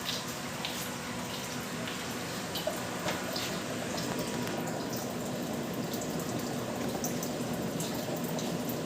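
CNC router milling aluminum: a steady hiss with a faint steady tone and scattered sharp ticks and clicks.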